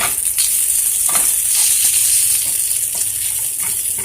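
Leftover beef and onions sizzling in a hot oiled frying pan, a steady hiss that swells in the middle. A few short knocks of a utensil stirring in the pan.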